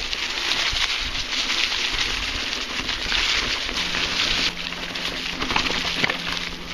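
Mountain bike rolling along a trail covered in dry fallen leaves: the tyres crunch and rustle through the leaves, with a steady stream of clicks and knocks as the bike rattles over bumps. A faint steady hum joins about halfway through.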